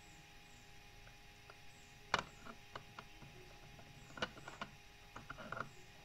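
Hard plastic puzzle blocks clicking and knocking against each other as a piece is tried in place on the pyramid: one sharp clack about two seconds in, then scattered lighter clicks and a quick run of them near the end.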